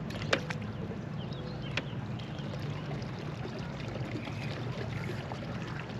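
Steady low hum and water noise from the water around a fishing boat, with two sharp clicks, one just after the start and one a little under two seconds in.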